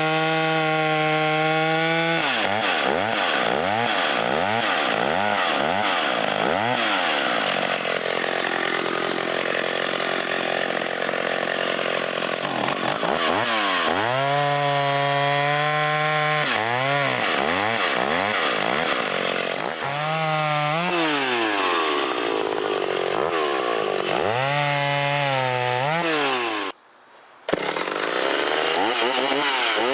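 Stihl 031 48 cc two-stroke chainsaw cutting wood, its engine note repeatedly revving up and dropping back as it goes in and out of the cut and dipping under load while sawing. Near the end the sound cuts out for under a second, then the saw comes back running.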